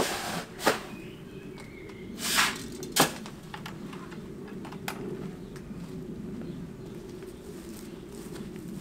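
Granite stone chips scooped into a plastic bucket: a few sharp knocks and a short gravelly rustle in the first three seconds, then only a steady low background hum.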